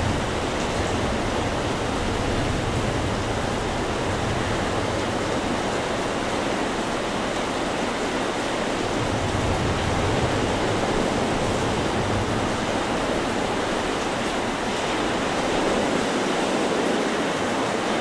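Rough, storm-driven surf breaking continuously on a beach, a steady rushing wash of waves that swells a little about ten seconds in and again near the end.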